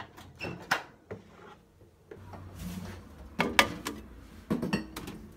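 Handling noise as a plate is put into a microwave: a few knocks and clicks of the dish against the glass turntable, with rubbing scrapes. A low steady hum comes in about two seconds in.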